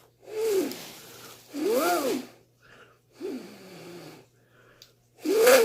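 A person's breathy, wordless vocal sounds, four short ones each under a second, with the pitch sliding up and down; the last one, near the end, is the loudest.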